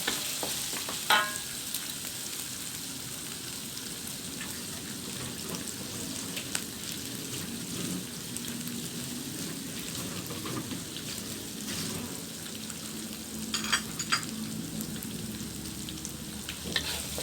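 Pounded shallots, garlic and ginger frying in hot oil with cinnamon bark, fenugreek and star anise, a steady sizzle, stirred in the pan with a few sharp scrapes and knocks of the utensil, about a second in, midway and near the end.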